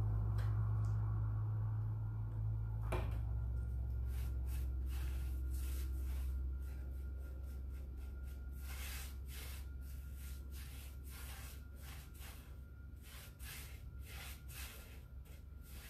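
Brush strokes spreading water-based polyurethane over a deeply grooved barnwood sign: a run of short, irregular rubbing swishes. A low hum runs underneath for the first several seconds and fades out.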